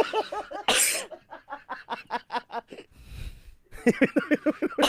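A man coughing: one sharp cough about a second in, then runs of short, quick coughs in rapid succession.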